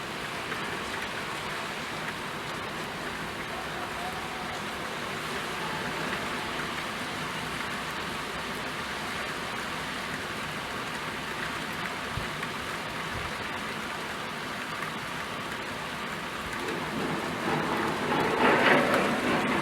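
Steady rain falling, a continuous even hiss of drops. It swells louder for a couple of seconds near the end.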